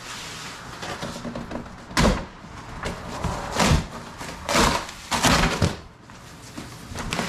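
Heavy corrugated cardboard shipping box being torn open by hand: a ripping hiss at first, then from about two seconds in a series of about six sharp rips and thumps as the box sides are torn down and the flaps flattened.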